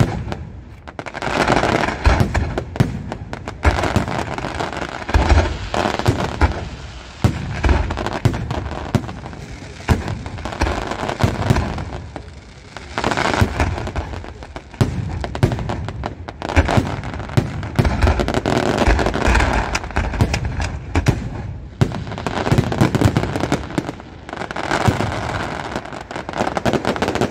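Fireworks display: shells bursting in a dense, continuous run of booms and bangs with crackling between them, swelling and easing in waves every few seconds.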